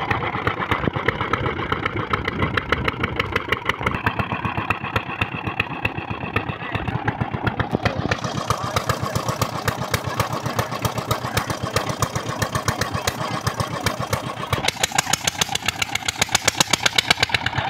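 Small stationary diesel engine running the tube-well drilling rig, with a steady rapid firing beat. The sound turns harsher about halfway through and grows louder near the end.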